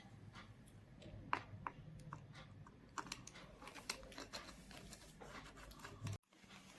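Faint scattered clicks and taps of small parts and screws being handled as a cover plate is fitted back onto a sewing machine. The sound drops out briefly near the end.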